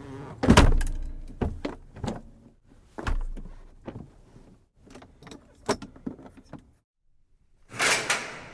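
Heavy iron door being worked: a loud metallic clank with a deep thud, then a run of smaller clanks and latch rattles, and after a short pause a longer, harsher clang near the end.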